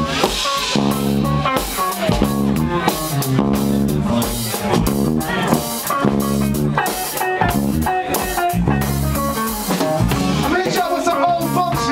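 Live band playing a groove on electric bass, electric guitar and drum kit, loud and steady.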